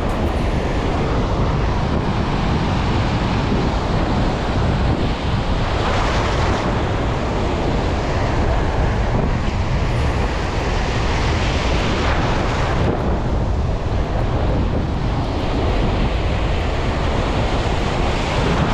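Wind rumbling on the microphone over the wash of surf on the shore. The waves swell and fall back every several seconds.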